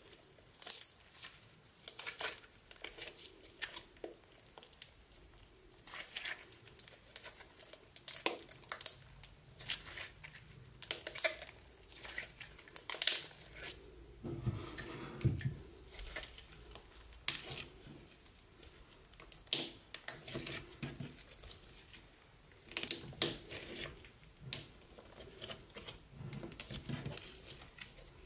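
Sticky slime being pressed and poked, giving irregular crackly sticky pops and clicks. About halfway through there is one longer, deeper squelch.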